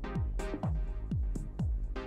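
Background electronic dance music with a steady kick drum about twice a second and a bright high stroke about once a second.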